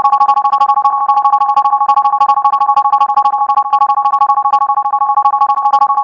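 A short soundboard clip looped and sped up so far that the repeats merge into a loud, steady two-tone drone with a very fast flutter.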